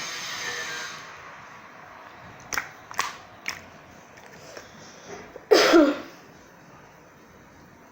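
Glitter slime being squeezed and stretched by hand: three quick pops, then about halfway through a louder squelching noise lasting about half a second, falling in pitch.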